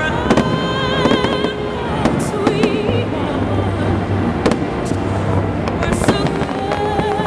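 Fireworks display: aerial shells bursting in many sharp bangs and crackles, over music playing with long, wavering held notes.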